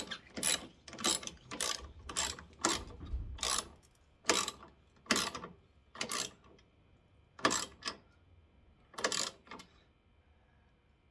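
Hand ratchet clicking in short repeated strokes, about two a second at first, then coming slower and stopping a couple of seconds before the end.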